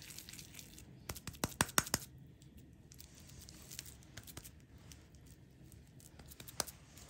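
Kitchen handling noises as sausage-and-cheese patties are dredged in flour: a quick run of sharp taps and clicks between one and two seconds in, soft rustling, and a single tap near the end.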